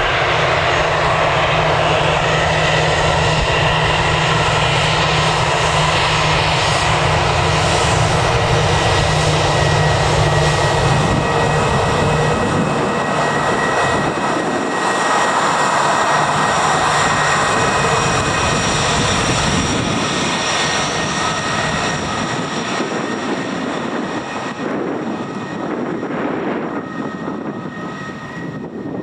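Fixed-wing aircraft engines running loud and steady as a plane passes close, with a few held high whining tones; the low rumble drops away about halfway through and the sound fades over the last several seconds.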